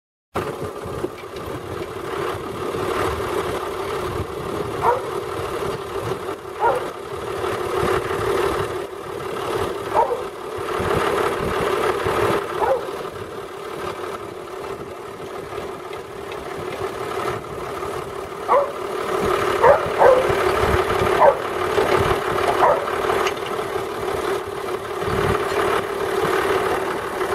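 Tractor engine idling steadily, with a scattering of short sharp sounds over it, several bunched together a little past the middle.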